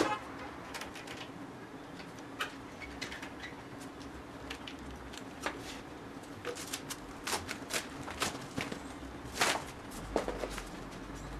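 Scattered small clicks, taps and rustles from hands handling parts and the mat of a small aluminium-framed clean-room cabinet during assembly, the loudest a brief scrape-rustle about nine seconds in. A steady low hum runs underneath.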